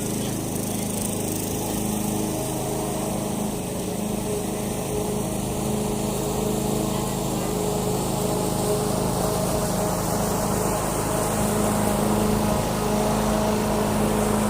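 Walk-behind lawn mower's engine running steadily while it is pushed through grass, growing slightly louder near the end.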